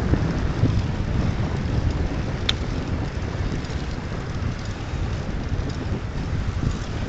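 Wind buffeting a phone's microphone on a moving bicycle: a steady low noise. One sharp click comes about two and a half seconds in.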